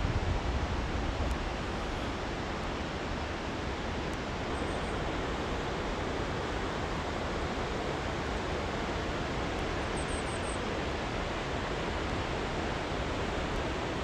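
Steady, even rush of a mountain river flowing over rocks, with no break. Low wind buffeting on the microphone in the first second or so.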